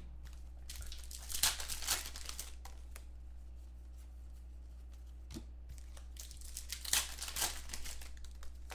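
Foil wrapper of a Panini Contenders football card pack crinkling and tearing as it is ripped open and handled, in two bursts: about a second in and again near the end.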